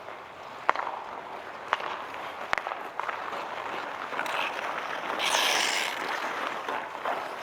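Outdoor ice hockey play: a steady scrape of skates on ice with several sharp stick-and-puck clacks in the first few seconds, then a louder hissing scrape about five seconds in.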